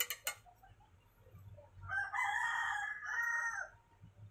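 A rooster crowing once, a single call of about two seconds starting near the middle. A few light clicks at the very start.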